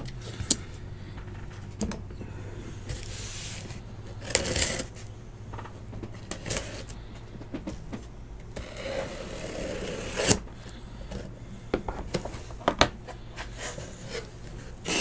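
Cardboard being handled as a sealed hobby case of trading-card boxes is opened: irregular scraping and rustling with a few sharp clicks and knocks, over a steady low hum.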